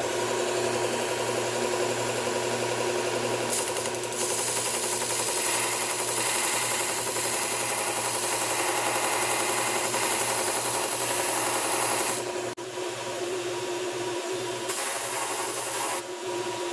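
1x30 belt sander running with a 120-grit Cubitron belt while a chisel bevel is ground against it at a 25-degree angle to straighten the edge. The grinding hiss grows louder about three and a half seconds in and eases off after about twelve seconds.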